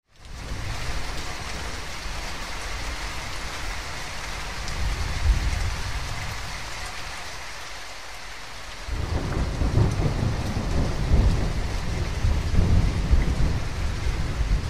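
Thunderstorm: steady rain with rumbling thunder, the rumble turning heavier and louder about nine seconds in.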